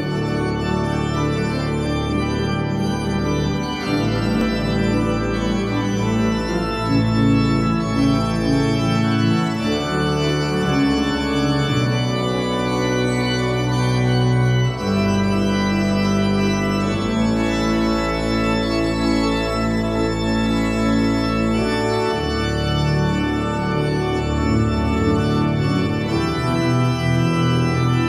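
Church pipe organ playing a toccata on a hymn tune: full sustained chords over deep pedal bass notes, the harmony changing every few seconds.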